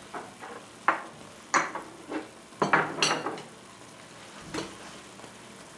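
Large metal spoon stirring thick quinoa risotto in a stainless steel pan, with about six sharp scrapes and knocks of the spoon against the pan over a faint sizzle from the hot pan.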